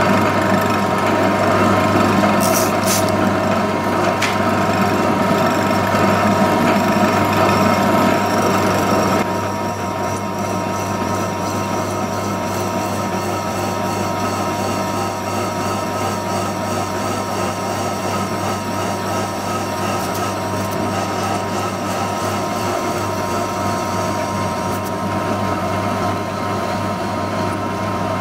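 Horizontal milling machine running an arbor-mounted slitting saw through cast aluminium, cutting a slot at a deeper pass: a steady machining drone with a constant motor hum. It gets a little quieter about nine seconds in.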